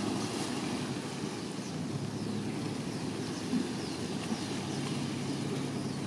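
Distant, steady low rumble of a Boeing 787-9 airliner's jet engines on approach with its landing gear down.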